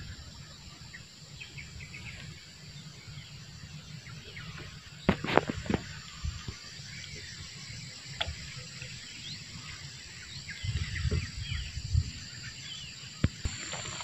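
Steady, high-pitched, pulsing chorus of insects, with scattered short bird chirps over it and a few sharp knocks about five, eight and thirteen seconds in.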